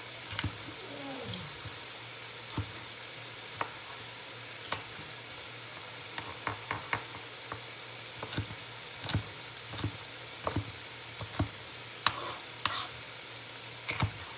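Knife chopping baby bell peppers on a cutting board: irregular sharp knocks, coming closer together in the second half. Under them runs the steady sizzle of chicken frying in a pan.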